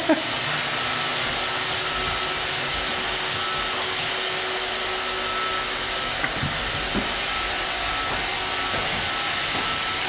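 iRobot Roomba robot vacuum running: a steady hiss from its vacuum motor and brushes with a thin high whine, broken only by a couple of faint ticks near the middle.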